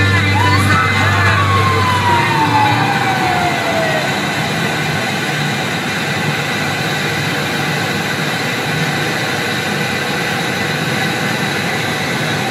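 Ambulance siren heard from inside the cab: one wail rises briefly, then falls slowly in pitch and ends about four seconds in. The ambulance's engine and tyre noise run on steadily in the tunnel.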